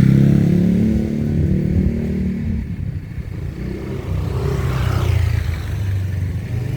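Traffic: engines of motor vehicles passing close by. One is loud at the start and fades after about two seconds, and another swells up and passes near the end.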